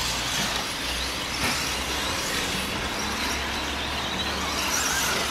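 1/10-scale electric 2wd short-course RC trucks racing, the high whine of their motors faint over a steady hiss.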